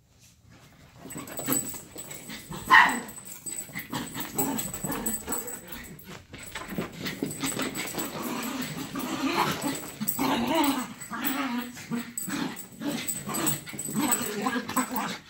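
Two small dogs playing and chasing each other, with excited yips and whines and a short, loud yip about three seconds in, over scuffling and knocks from the play.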